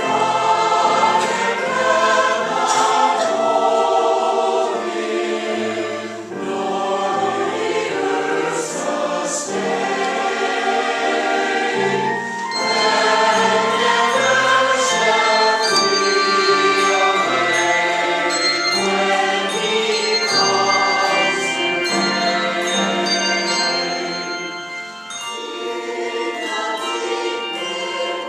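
Choir singing a Christmas song in several voice parts, in long phrases with brief pauses between them.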